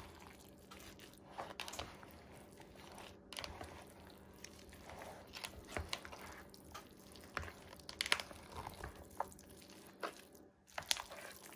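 Wooden spoon stirring a thick, moist cornbread dressing mixture, freshly wetted with chicken broth, in a mixing bowl: faint, irregular squishy scrapes and soft knocks.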